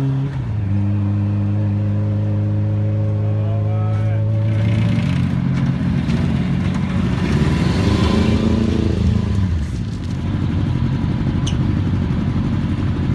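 The Minica's swapped-in Kawasaki ZX-9R inline-four motorcycle engine running hard at a steady pitch. About four seconds in the pitch shifts and the sound thickens, building to a peak. Near ten seconds it drops to a lower, rougher running.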